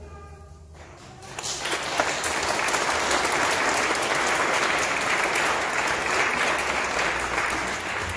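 The song's last note dies away, and about a second in a small audience of guests breaks into applause, clapping steadily and tapering off near the end.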